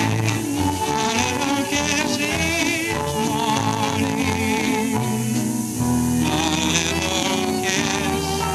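Dance orchestra music on an early sound-film recording: violins, banjo and string bass playing a dance tune, with a man's voice singing along at the microphone.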